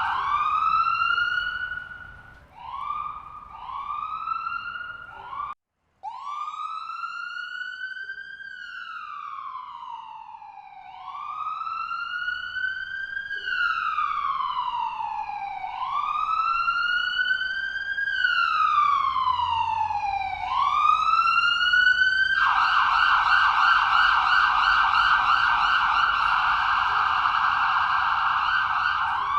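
Electronic ambulance siren switching between patterns: a run of short rising whoops, then slow wails rising and falling, then from about 22 seconds in a fast, rapidly warbling yelp. It cuts out completely for about half a second some five and a half seconds in.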